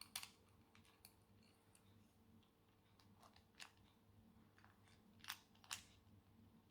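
Near silence broken by a handful of faint, sharp clicks and light knocks from small parts being handled while the chainsaw attachment's chain and bar are fitted. The clicks come singly, with a close pair near the end.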